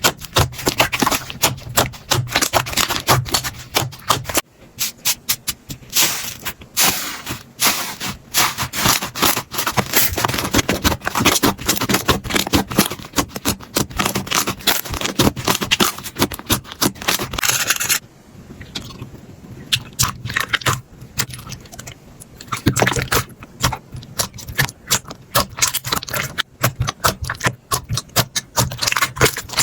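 Slime being squeezed, poked and stretched by hand, giving dense crackling and clicking pops. The texture changes twice, about four seconds in and again at about eighteen seconds, where it turns quieter for a few seconds.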